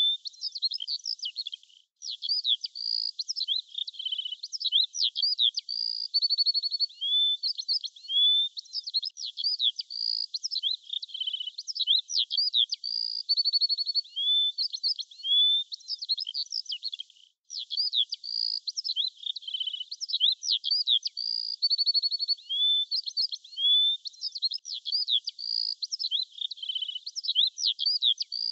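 Small birds singing: a steady chatter of high chirps, upward-slurred whistles and fast trills, with two brief breaks. The stretch of song after the second break repeats the one before it.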